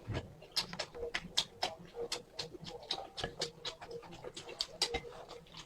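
Close-up eating sounds: irregular wet clicks and smacks of chewing and slurping noodles, with breathing between mouthfuls.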